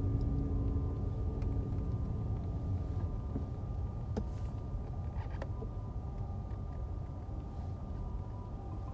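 Steady road and engine rumble inside a moving car's cabin. From about halfway through, the faint two-tone hi-lo wail of an ambulance siren (pii-poo) comes in from outside.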